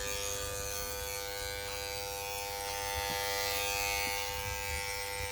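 Electric hair clippers running with a steady buzz as they cut hair.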